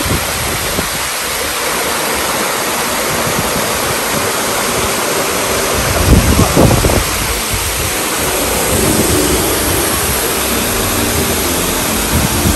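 Waterfall running: a steady rush of water falling down a rocky stream cascade. A few low rumbles of wind or handling noise on the microphone come about six seconds in.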